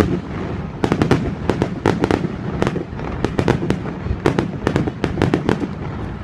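Aerial fireworks display: a rapid, uneven string of sharp cracks from bursting shells over a continuous low rumble.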